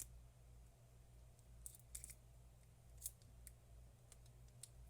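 Faint, scattered sharp clicks of small parts being handled as the Pebble Steel smartwatch's internals are lifted out of its steel case, over a steady low hum.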